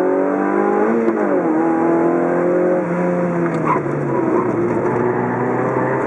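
Car engine heard from inside the cabin while lapping a circuit: its pitch climbs, drops sharply about a second in, then falls away about three seconds in as the car comes off the throttle for a corner, running lower after.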